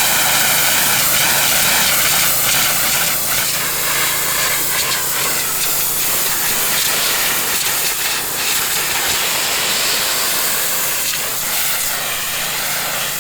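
Pressure washer running, its high-pressure water jet hissing steadily over a low motor hum.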